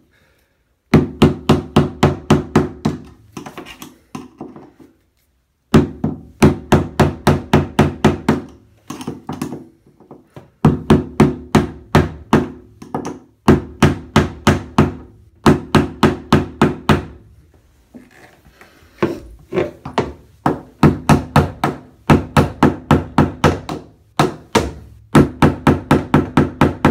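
Hammer blows on a screwdriver set in the notch of a corroded bathtub drain flange, driving it round to loosen the drain. The blows come in rapid bursts, about four or five a second, with short pauses between, and each strike rings.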